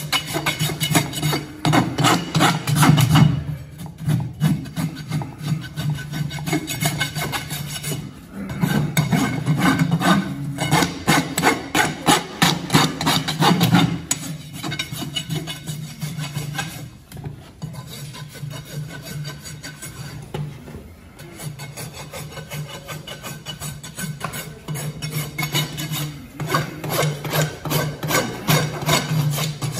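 Farrier's rasp filing a horse's hoof cast in quick, repeated back-and-forth strokes, the casting material not yet fully cured. The strokes come in runs with brief pauses between them.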